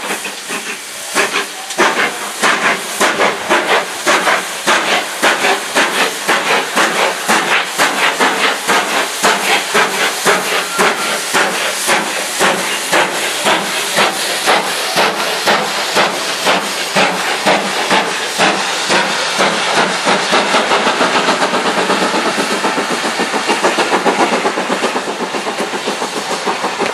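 GWR Manor-class 4-6-0 No. 7812 Erlestoke Manor, a two-cylinder steam locomotive, working hard as it pulls a passenger train away. Its exhaust beats come in an even rhythm over a hiss of steam, quickening as it picks up speed.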